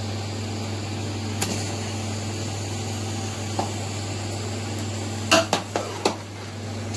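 A spoon knocks three times against a large cooking pot about five seconds in, as butter is worked into the cooked-down grated carrots. Two fainter clicks come earlier, over a steady low hum.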